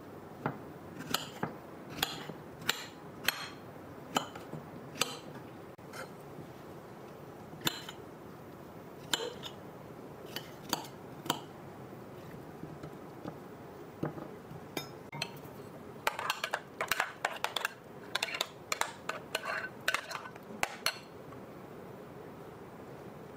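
Kitchen knife chopping strawberries on a glass plate, the blade clicking against the glass. The clicks are spaced out at first, then come in a quick run of chops near the end.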